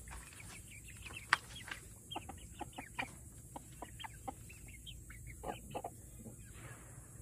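Silkie chickens clucking and chattering in a run of many short, quick calls, with one sharp, loudest note about a second and a half in.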